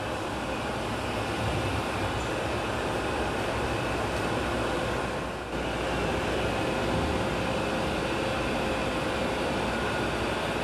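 Steady noise of machinery running inside a steel ship's hull, with faint steady tones in it and a brief dip about five and a half seconds in.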